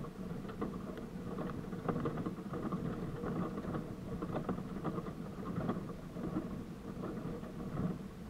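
Jeep Wrangler YJ driving slowly over a rough dirt trail: a steady engine drone under frequent irregular knocks and rattles from the body and the load on the hood, picked up close by a hood-mounted camera.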